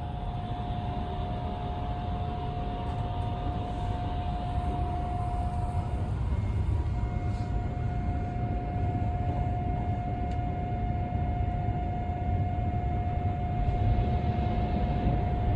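Tobu Spacia limited express train running at speed, heard from inside the carriage: a steady low rumble of wheels on track with a constant whine held on one pitch.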